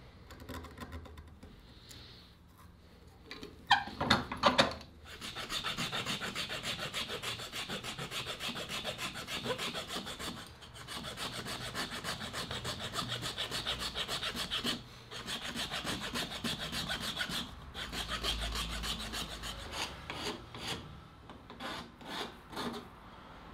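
Rapid back-and-forth strokes of an abrasive rubbing against the cabreuva wood of a kunai, in runs broken by short pauses. A few loud knocks come about four seconds in, before the strokes start.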